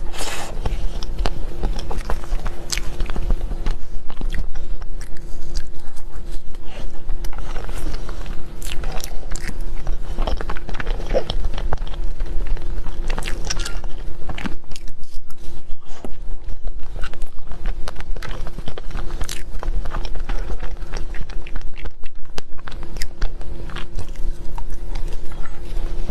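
Close-miked eating of a mille crepe cake: repeated bites and chewing with many small mouth clicks, over a steady low hum.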